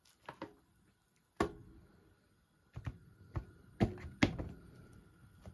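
A fork and pieces of cooked chicken knocking and tapping against a paper plate and container while the chicken is moved onto the plate: a string of sharp knocks, the loudest about a second and a half in and again about four seconds in.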